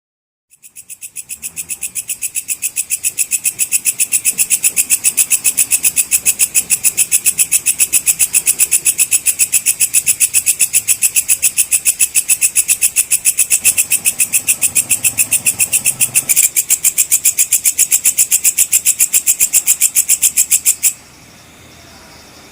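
Walang kecek (belalang kecek) insect calling: a fast, even train of sharp, high clicking pulses that builds up over the first few seconds, holds steady and then stops abruptly near the end.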